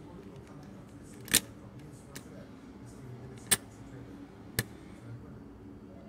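Metal parts of a mortise lock's internal mechanism clicking as they are fitted into the steel lock case by hand: three sharp clicks a second or two apart, with a fainter one between the first two.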